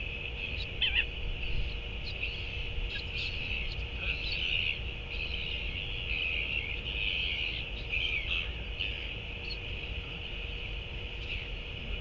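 Continuous high-pitched chirping chorus of small birds or insects in open grassland, with short separate chirps scattered through it and a low rumble of wind on the microphone.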